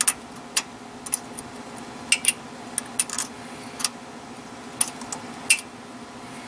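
Small, sharp metal clicks and taps, about a dozen at irregular intervals, as steel pinion shaft bolts are handled and fitted into a Ford 7.5 rear axle's differential carrier. A steady low hum runs underneath.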